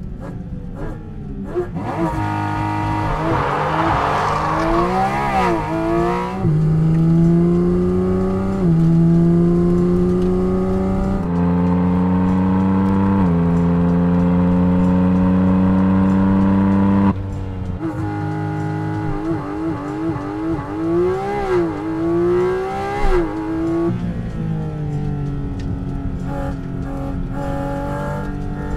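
Porsche 718 Cayman GT4 RS's naturally aspirated flat-six engine driven hard on track, held at high revs and stepping through quick gear changes. After an abrupt cut partway through, the revs rise and fall in quick swings as the car brakes and accelerates through corners.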